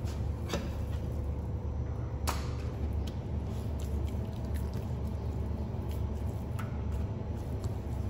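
A long butcher's knife slicing raw beef on a plastic cutting board, with a few sharp clicks, the sharpest about two seconds in, over a steady low hum.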